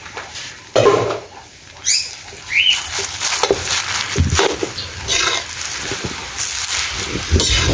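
Metal spatula scraping and clanking against a steel wok in irregular strokes as cabbage and bean sprouts are tossed and stir-fried, with a couple of short high squeaks in the first few seconds.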